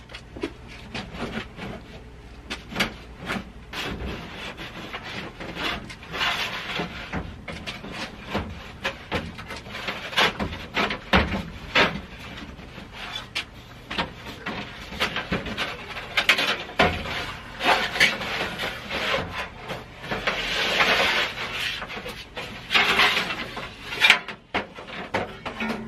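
Round sheet-metal heating ducts being worked loose and pulled down from ceiling joists: repeated scraping and rubbing of thin metal pipe, with many clanks and knocks, and a longer scrape near the end.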